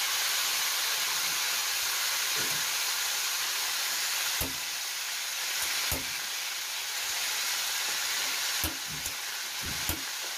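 Floured, parboiled beef shank pieces sizzling steadily in hot oil in a stainless steel frying pan, with a few sharp clicks from about four and a half seconds in.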